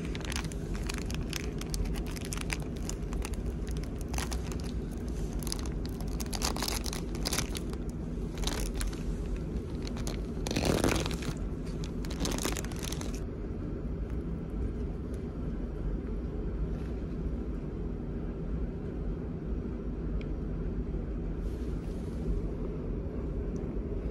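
Plastic film bag of a microwaved frozen doria crinkling and tearing as it is opened by hand, loudest about halfway through, then stopping. A steady low drone of the ferry's engines runs underneath.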